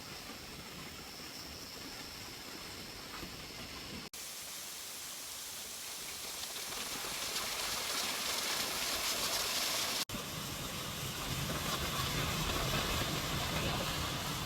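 Steady rushing of a waterfall's falling water. It drops out for an instant twice and grows louder about halfway through.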